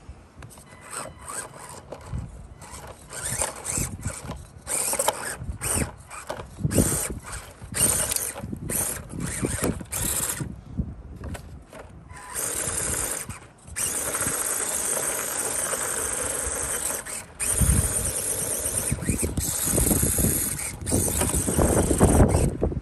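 RC crawler's small electric motor and gearbox whining under throttle, first in short repeated bursts, then running almost steadily for the last ten seconds or so. Wind buffets the microphone.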